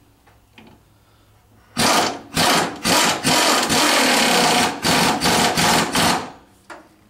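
Power tool run in about eight short trigger pulls, with one longer run of over a second near the middle.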